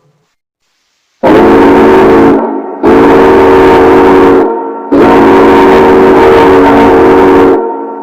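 Tugboat horn sounded three times, each blast longer than the last: a loud, deep chord of several notes held steady. The last blast fades out slowly, ringing on after it stops.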